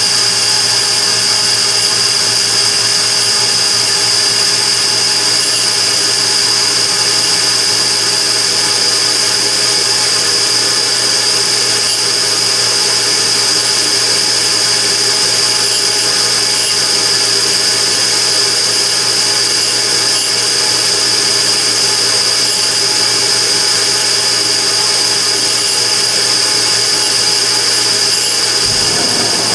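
Immersion tube burner running with an abnormal noise: a loud, steady whine with a strong high whistling tone over a low hum. Near the end the low hum cuts out and the sound changes.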